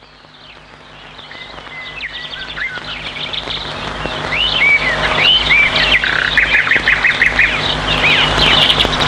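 Birdsong fading in: many small birds chirping and trilling, with quick arching whistled calls repeated throughout, over a faint steady low hum.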